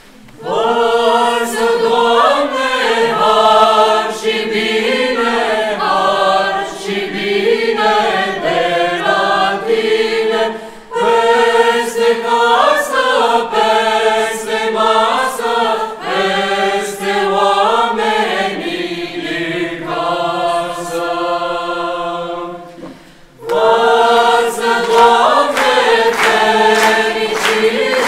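Mixed choir of men and women singing a Romanian Christmas carol (colind) a cappella, in sustained phrases. The singing breaks off briefly about five seconds before the end, then resumes.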